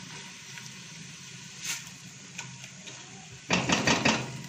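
Onions, carrot and tomato paste sizzling as they fry in a stainless steel pot, stirred with a wooden spatula; a loud run of scraping and knocking against the pot about three and a half seconds in.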